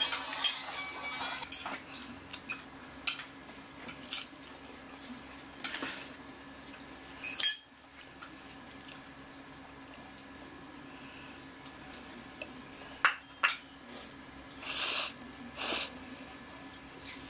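Metal fork clicking and scraping against a glass bowl of pancit canton noodles, in scattered sharp clinks, with two louder slurps of noodles near the end.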